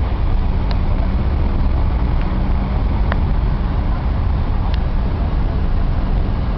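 Steady low rumble of idling vehicle engines and street traffic, with a few faint short clicks.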